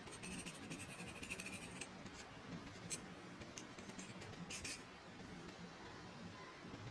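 Faint, rapid scratching and ticking for about two seconds, then a few separate sharp clicks: small hard objects being handled by hand.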